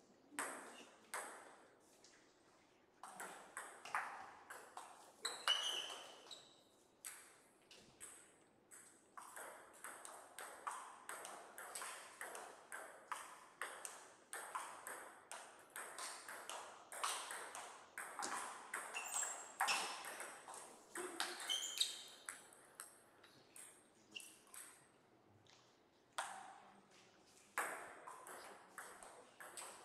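Table tennis ball being hit back and forth in rallies, with quick sharp clicks of ball on rubber bats and on the table. The clicks come in runs, with short pauses between points.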